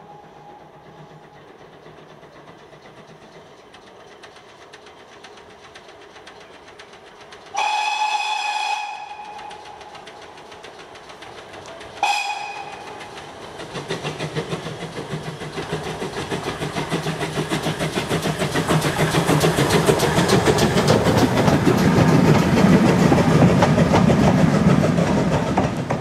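Steam locomotive whistle: one long blast and then a short toot about four seconds later. Then the rapid chuffing of a small steam tank engine working toward the listener, growing steadily louder as it draws near.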